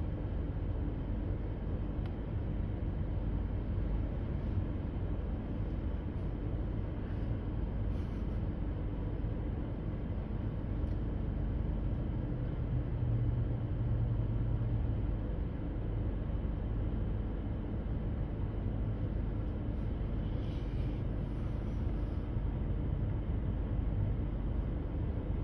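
Freight train rolling past: a steady low rumble, swelling slightly about halfway through.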